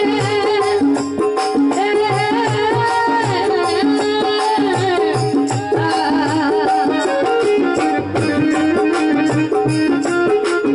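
Rajasthani folk bhajan music played live: a wavering melody over a steady hand-drum beat and sharp rattling percussion.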